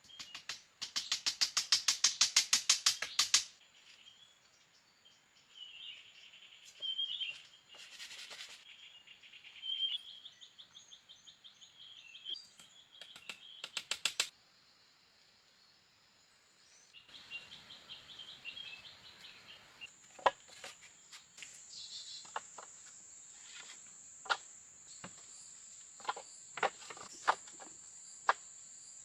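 Jungle ambience: insects and birds calling, opening with a loud, rapid pulsing trill for a few seconds. Further on there are chirps and a steady high insect drone. In the later part, scattered sharp knocks and cracks stand out.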